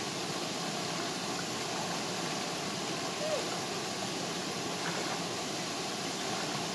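Steady rushing of a small waterfall and stream water pouring into a rock pool, an even noise that does not change.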